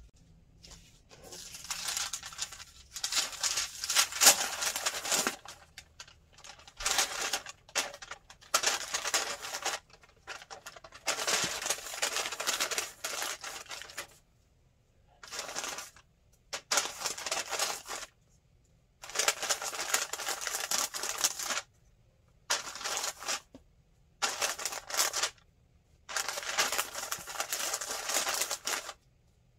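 White paper bag crinkling and rustling in irregular bursts with short pauses, as hands open it and pack a small cardboard box inside.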